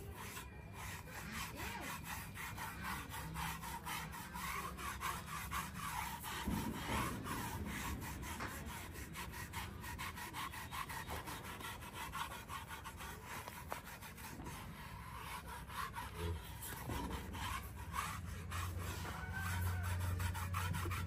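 Hands rubbing and massaging a horse's coat: a steady scratchy rubbing made of many quick, repeated strokes.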